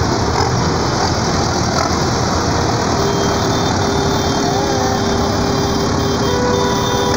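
Diesel engines of several farm tractors running as they drive slowly past close by, a loud, even engine noise. A steady humming tone joins about three seconds in.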